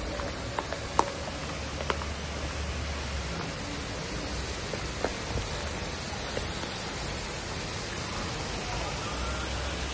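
Steady rushing noise with a low rumble in the first few seconds and again near the end, and a few sharp clicks in the first two seconds.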